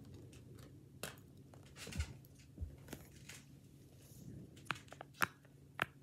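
Handling of a silicone pop-it fidget toy fresh out of its packaging: soft rustling as it is turned over in the hands, with a few scattered sharp clicks.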